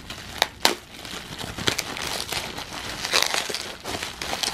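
Bubble wrap crinkling and rustling as hands pull it off a plastic bottle, with a couple of sharp crackles about half a second in.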